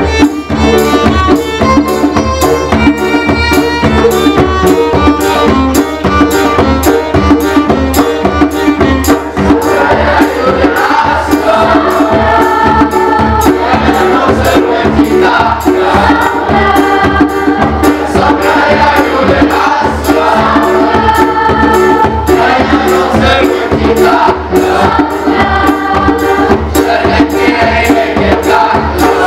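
Live ensemble of violin, piano, djembe and tambourine playing a folk-style tune over a steady hand-drum beat. About ten seconds in, a youth choir starts singing over the instruments.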